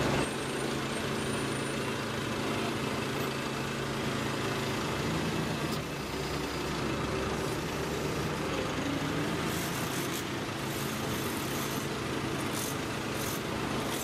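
The truck engine of a truck-mounted manhole core-cutting rig running steadily as its hydraulic boom lifts the cutter and the cut asphalt core, with a few light clicks in the last few seconds.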